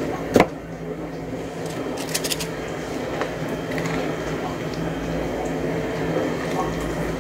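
A spoon scooping thick muffin batter out of a plastic mixing bowl, with one sharp knock about half a second in and light clicks and scrapes after, over a steady low hum.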